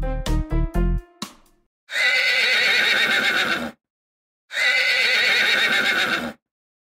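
A horse whinnying twice, each whinny nearly two seconds long, with a short silent gap between them. They follow a brief children's music jingle that ends about a second in.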